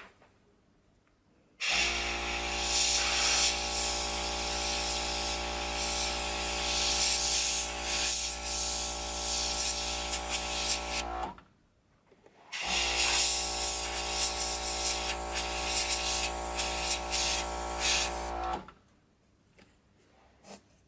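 Airbrush and its small compressor running: a steady motor hum under a loud hiss of air as enamel paint is sprayed, in two long runs that start and stop suddenly, the second after a brief pause.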